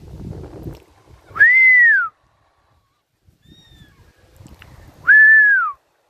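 A person whistling two loud single notes about three and a half seconds apart, each rising and then falling in pitch: a call to bush stone-curlews. A faint thin bird call comes between the two whistles.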